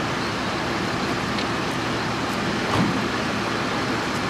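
Steady running noise of emergency vehicles' engines idling, with one short knock about three seconds in.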